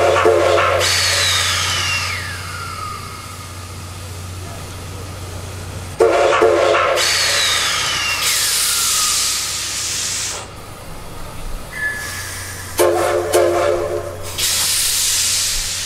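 Steam locomotive sounding three short whistle blasts, at the start, about six seconds in and near the end, each with a rush of hissing steam. A falling tone trails the first two, and long bursts of steam hiss come in between.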